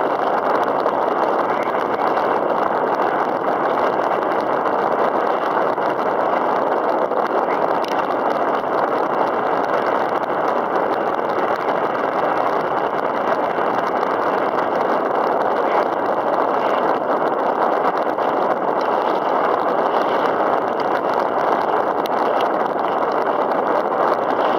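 Steady rushing noise of wind and choppy water around a kayak on open water, with no pause or change.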